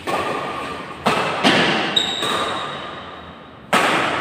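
Doubles badminton rally: rackets striking the shuttlecock, several sharp smacks at uneven intervals that echo in a large hall, with a short high squeak of sneakers on the floor about two seconds in.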